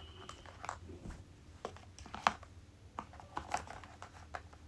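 Irregular light clicks, taps and rustles as a plastic makeup kit and its packaging are handled and packed away, with one sharper click a little after two seconds.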